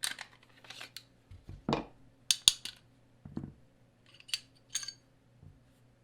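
CZ P10C pistol being taken down by hand: a series of sharp metallic clicks and clacks, about eight in all, as its parts are worked and set down.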